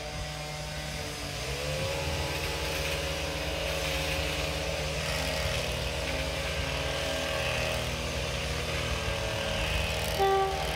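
Diesel locomotive engines of an approaching convoy running steadily, growing louder and rising in pitch about a second and a half in. A short, loud horn note sounds near the end.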